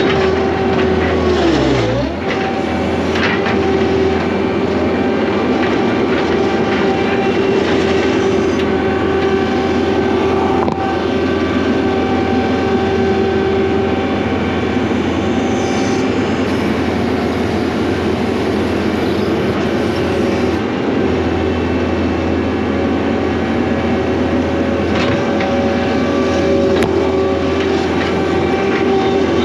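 John Deere 317 skid steer's diesel engine running steadily under load, with a shift in engine pitch about two seconds in.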